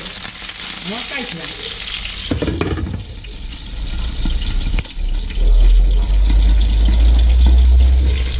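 Flour-dredged whole fish sizzling as they pan-fry in oil over medium heat, a steady hiss with the pan soon covered by a glass lid. A loud low rumble joins in for the last few seconds.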